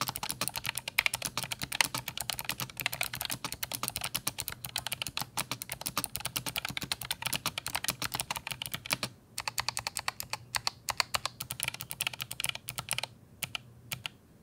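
Fast typing on an ROG Claymore II keyboard with ROG RX Blue optical clicky switches: a dense stream of sharp key clicks. There is a brief pause about nine seconds in, and the keystrokes thin out near the end.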